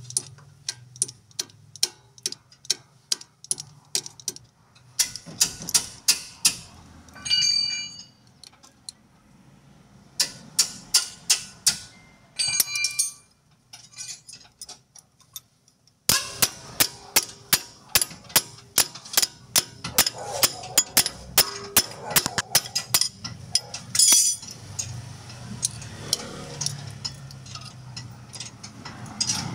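Hammer blows on steel underchassis parts: runs of sharp metal strikes about three a second, some ringing briefly after the hit.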